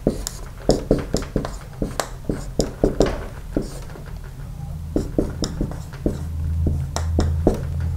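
Dry-erase marker writing on a whiteboard: an irregular run of quick taps and scratches, several a second, as the letters and symbols are stroked on. A low hum sits underneath, stronger in the second half.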